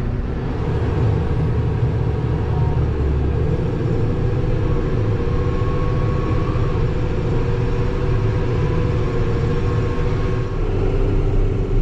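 A vehicle's engine running steadily while driving, with a continuous low rumble.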